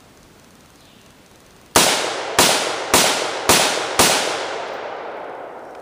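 AR-15 rifle with a 20-inch upper firing five semi-automatic shots of .223 ammunition, about two a second, starting a little under two seconds in. The reports trail off in a long fading echo. The rifle cycles every round without a hitch.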